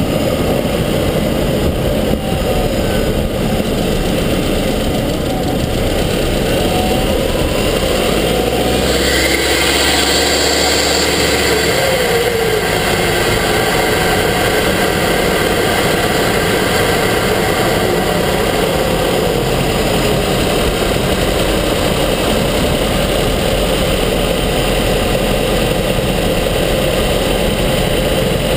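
Subaru Forester XT's turbocharged flat-four engine running, heard up close from inside the engine bay. About nine seconds in the sound changes and a higher whine sets in and holds.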